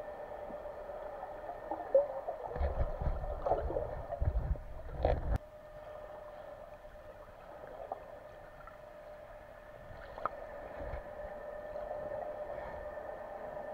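Underwater sound picked up by a camera in a housing: a steady hum, broken a few seconds in by about three seconds of low rumbling and gurgling, like a diver's bubbles or movement close to the camera.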